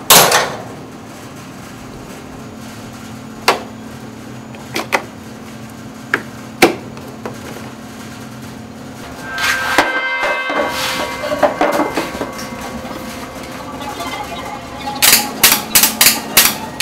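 A steady low hum with a few sharp metallic clicks of jumper-cable clamps, sustained ringing tones swelling in about ten seconds in, then near the end a quick run of sharp electrical crackles as the clamps are touched together and spark.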